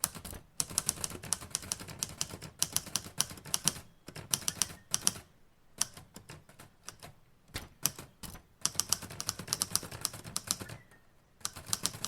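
Typewriter keys clacking in quick runs of strokes, broken by two short pauses, one about halfway through and one near the end.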